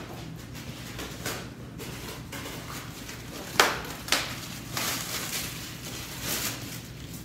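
A few sharp clicks and knocks of hand work at an engine on a workbench, the loudest about three and a half seconds in, then some rustling, over a steady low shop hum.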